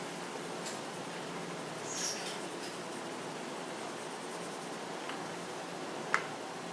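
Colored pencil scratching on paper in quick shading strokes, with a sharp tick about six seconds in.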